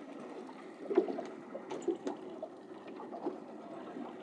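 Sea water lapping and splashing around a small boat, with a few light knocks.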